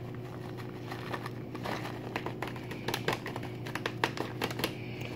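Shredded cheddar being shaken from a plastic bag onto a casserole in a foil pan: irregular light crinkles and soft patters of the bag and falling shreds, over a steady low hum.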